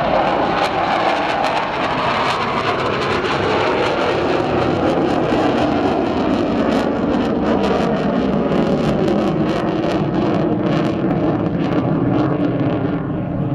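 F/A-18 Hornet fighter jet's engines running at high power as it passes and climbs away: a loud, steady jet noise whose pitch slowly falls, with a ragged crackle over it.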